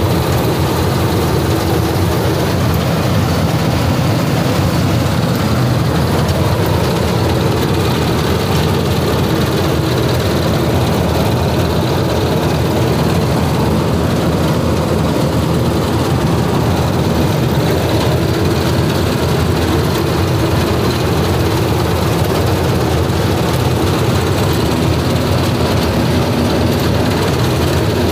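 Combine harvester running steadily under working load as it cuts ripe paddy: a loud, unbroken drone of the diesel engine and threshing machinery, heard from the driver's seat.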